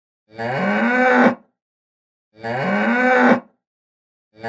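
Cow mooing: the same short moo, about a second long, plays over and over every two seconds, with silence between. The third one starts near the end.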